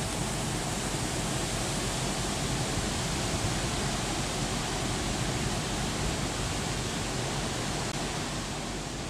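Large cruise ship passing close by: a steady rushing noise with a low hum underneath.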